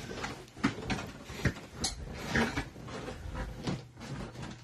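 Trading card hanger packs and cards being handled off-camera: a scatter of short, soft knocks and rustles.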